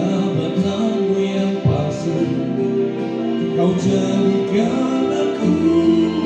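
Music from an Indonesian love song, a voice singing long held notes over instrumental accompaniment.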